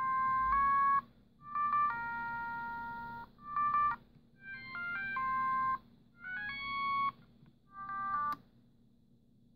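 Siemens C60 mobile phone playing one of its original ringtones: a bright electronic melody in short phrases of steady notes with brief gaps between them. It stops with a click about eight seconds in.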